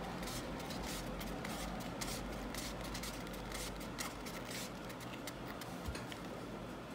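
Twine being wound by hand around a cardboard cone: soft, irregular scratchy rustling and small clicks of string and fingers rubbing on the cardboard.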